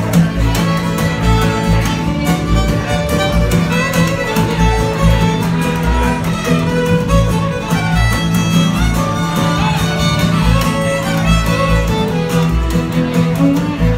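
Bluegrass string band playing live, the fiddle carrying the tune in an instrumental break over upright bass, mandolin and guitar; the bass plays a steady walking beat of low notes.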